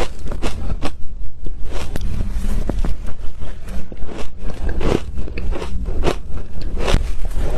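Soft flaky ice being bitten and chewed close to the microphone: repeated sharp crunches and crackles, several a second.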